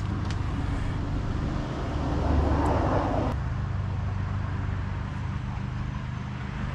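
Steady low outdoor background hum. About two seconds in, a louder rushing noise swells over it and cuts off suddenly about a second later.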